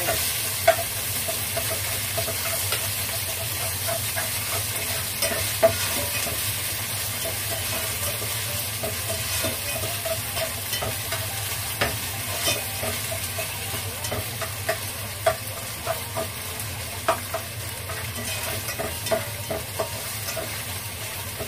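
Minced pork sizzling as it fries in hot oil in a pot, stirred with a spatula that knocks and scrapes against the pot at irregular moments.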